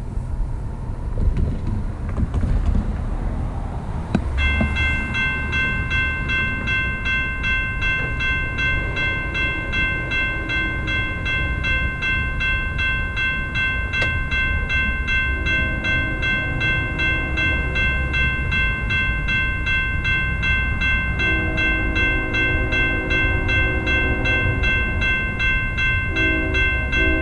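Freight train rumbling as it approaches, with a grade-crossing bell starting up about four seconds in and ringing steadily. From about halfway, the lead BNSF ES44AC's Nathan K5HL five-chime horn sounds in long blasts.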